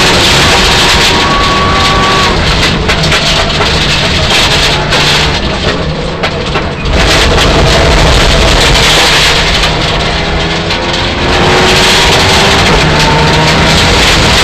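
Mitsubishi Lancer Evolution IX rally car's turbocharged four-cylinder engine heard from inside the cabin, driven hard and revving up and down through the gears over heavy road and tyre noise. The engine note and overall level dip briefly about six seconds in, then climb again.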